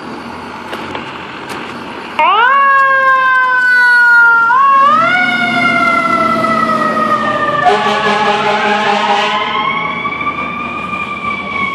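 Fire engine siren starting up suddenly about two seconds in and wailing in slow rising and falling sweeps as the engine moves off. A second, steady blaring tone sounds over it for about a second and a half, roughly two-thirds of the way through.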